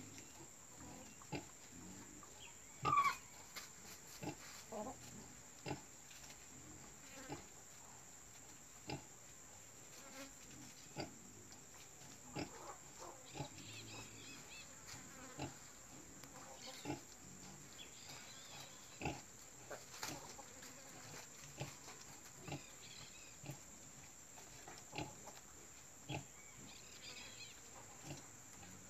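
Nursing sow grunting, short low grunts coming about once every second or so, the rhythmic grunting that goes with suckling a newborn litter. One louder, higher squeal about three seconds in.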